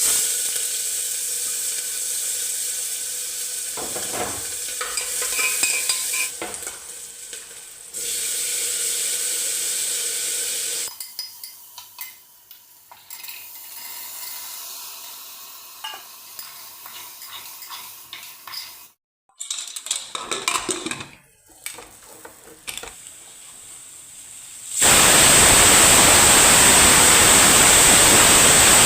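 Food sizzling in a hot pan as it is fried and stirred, with a spoon scraping and clinking against the pan, in several short segments. About 25 seconds in, a loud, steady hiss begins and holds.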